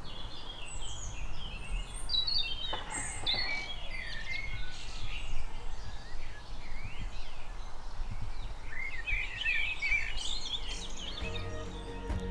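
Small songbirds chirping and singing in quick, overlapping phrases over a low rumble of wind on the microphone. Music fades in near the end.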